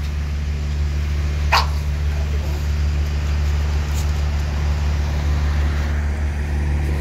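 An American Bully dog gives a single short bark about a second and a half in, over a steady low hum.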